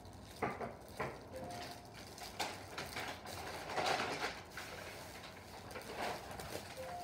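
A package being handled and torn open by hand: a run of short crackling and ripping noises, loudest around four seconds in.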